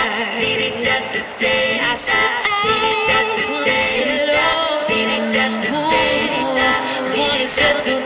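Live amplified music: a woman singing a melody with held, wavering notes into a microphone over electric bass guitar, played through a portable PA speaker.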